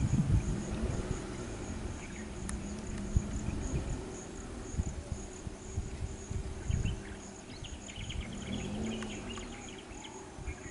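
An insect chirping steadily in a high, even pulse of about four chirps a second, over low rumbling with irregular dull thumps.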